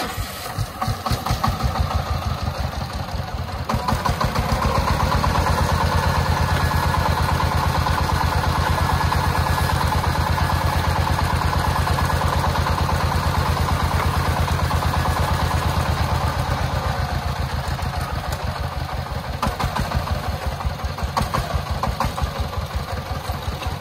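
Công nông three-wheeled dump truck's single-cylinder diesel engine running with a fast, even beat while the sand-laden tipper bed is raised to dump. It picks up over the first few seconds, holds strongest until about two-thirds of the way through, then eases slightly and runs less evenly.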